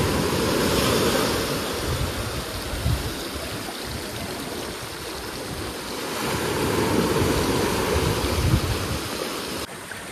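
Small waves washing up a sandy beach among boulders and draining back, the surf swelling twice about six seconds apart.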